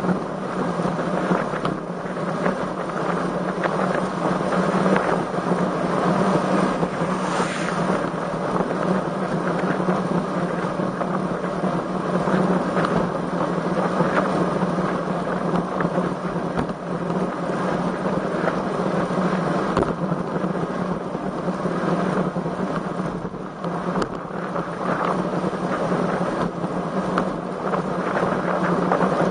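Wind buffeting the microphone of a camera on a moving road bicycle: a steady rushing noise with a constant low hum beneath it.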